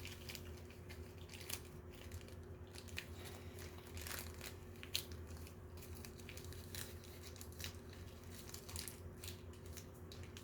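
Plastic packaging crinkling and tearing in short scattered rustles and clicks as a miniature toy is unwrapped by hand, over a faint steady low hum.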